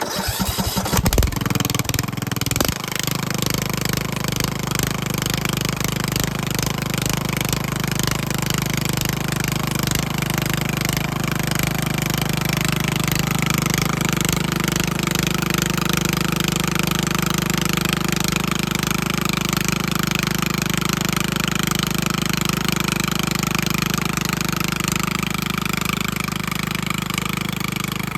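Riding lawnmower engine starting with a couple of seconds of uneven sputtering, then running steadily at a constant speed while the mower, stuck in creek mud, is driven in reverse.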